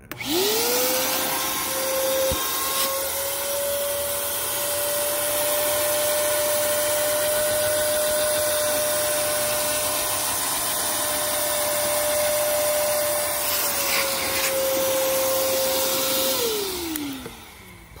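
Ridgid wet/dry shop vac switched on, its motor whine rising to speed, then running steadily as the hose nozzle sucks water out of wet seatbelt webbing. It is switched off near the end and the whine falls away.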